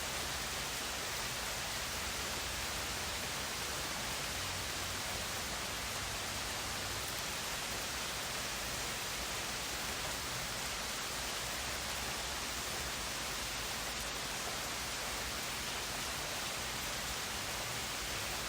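Steady rain: an even, unbroken hiss.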